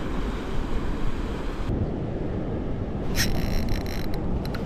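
Wind on the microphone and surf washing against a rock ledge: a steady rumbling noise, with a few faint clicks near the end.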